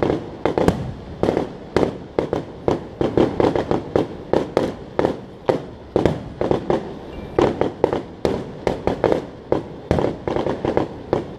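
Fireworks going off in a rapid, unbroken barrage of sharp bangs, about three a second, each with a short echoing tail.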